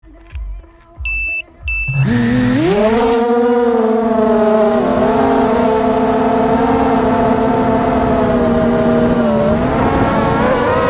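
Two short electronic beeps, then the brushless motors and propellers of a 250-size FPV racing quadcopter spin up about two seconds in, rising in pitch to a steady buzzing whine that shifts up and down as it lifts off and flies.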